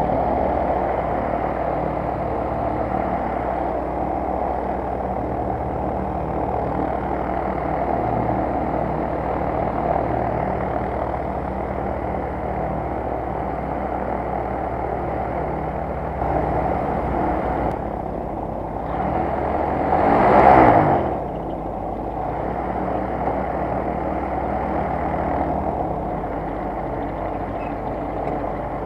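Quik GT450 flexwing microlight's Rotax 912 engine running steadily at low power while taxiing, with a brief louder swell about twenty seconds in.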